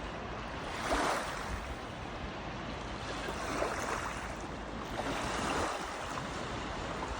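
Steady rush of water, rising in gentle swells a few times.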